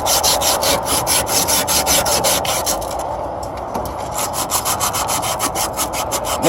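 Copper refrigerant tubing being scrubbed clean with an abrasive in rapid back-and-forth strokes, several a second, to prepare it for brazing.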